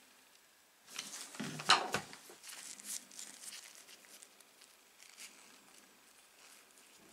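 Handling noise from the plastic parts and power cord of an angle grinder being fitted together by gloved hands: a cluster of rustles and clicks about a second in, loudest near two seconds in, then a few faint clicks.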